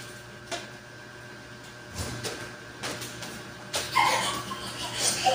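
A wooden ruler and marker handled on fabric laid over a table, making a few light knocks and scrapes over a steady faint hum. There is a louder stretch of handling noise about four seconds in.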